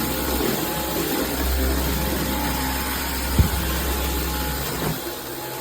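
Dyson V15 Detect cordless stick vacuum running on a hard floor: a steady motor whine over rushing air, with a deeper hum that swells and fades as the head moves. A single sharp knock about three and a half seconds in.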